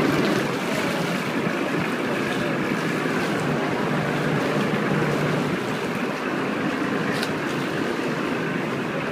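Motorboat running slowly and steadily, with water washing around the hull and the rock walls.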